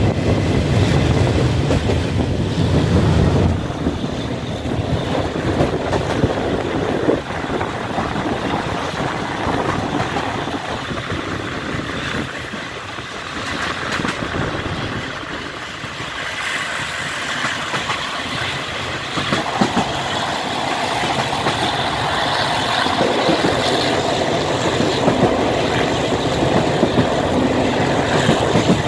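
Taiwan Railway blue-painted non-air-conditioned passenger train running on the line, heard through an open carriage window: a steady rush of wheels on rail and wind. It is a deeper, louder rumble for the first few seconds inside a tunnel, then thins out.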